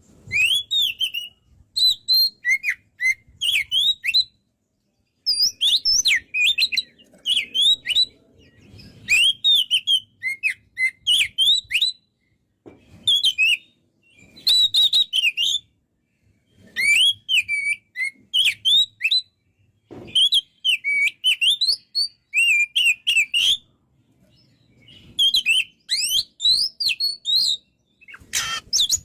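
Oriental magpie-robin (kacer) singing vigorously: short phrases of quick, varied whistled notes that slide up and down, repeated with brief pauses between them.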